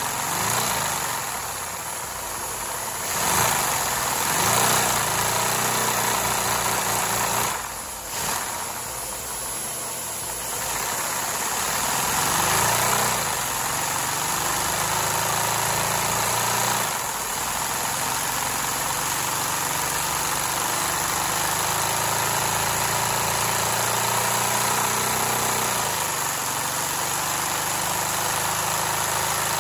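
Lego vacuum engine with four cylinders in a narrow-V (VR4) layout, running on vacuum. Its speed rises and falls several times in the first half, then it runs steadily from about halfway on.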